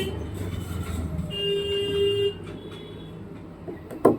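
Road traffic: a vehicle horn sounds one steady note for about a second over the low rumble of a passing engine, and a sharp click comes near the end.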